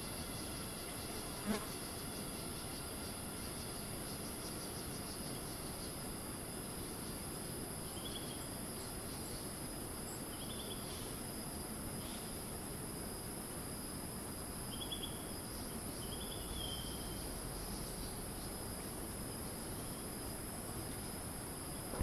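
Rainforest cicadas buzzing in a steady, high-pitched chorus, with a few short chirps over it and one sharp click about a second and a half in. There is a low rumble of wind on the microphone underneath.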